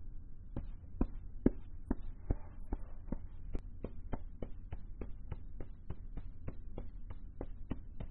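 Evenly spaced soft taps, a little over two a second, over a low steady hum.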